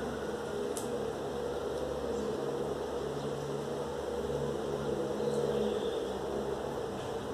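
Steady low hum of room noise, with faint small handling sounds as strips of masking tape are placed and pressed onto a wall, including a light click about a second in.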